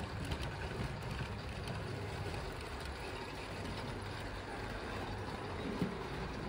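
Model Thalys high-speed train pulling out of the station track: a steady low running rumble.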